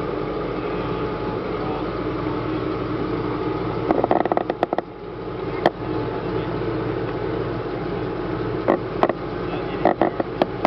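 M39 armored utility vehicle's Continental radial engine running steadily as the tracked vehicle creeps backward down a steel trailer deck. Sharp clanks and knocks from the tracks come in clusters about four to six seconds in and again near the end.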